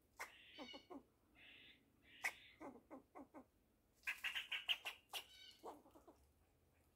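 Fox squirrel calling faintly in groups of short barking chucks, with a denser run of rapid chatter about four seconds in. This is the squirrel's alarm call, given with tail flicks.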